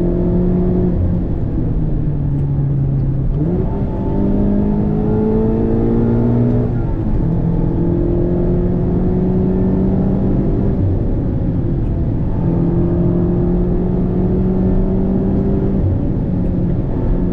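Mazda MX-5's 2.0-litre four-cylinder running through a Friedrich Motorsport Group A stainless cat-back exhaust while driving. It holds a steady note, then about three and a half seconds in the revs jump and climb for a few seconds, drop back at a gear change, and hold steady again.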